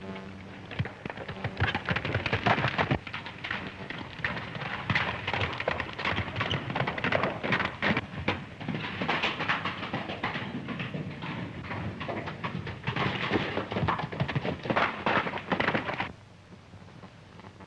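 Hoofbeats of galloping horses, a dense, continuous clatter that stops suddenly about sixteen seconds in.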